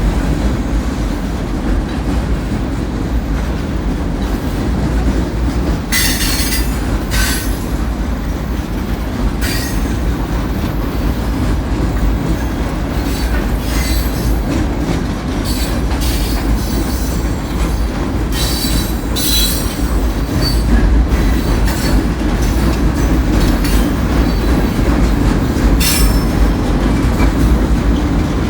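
Loaded rock train's freight cars rolling past with a steady low rumble, and short high-pitched wheel squeals several times, strongest near the end.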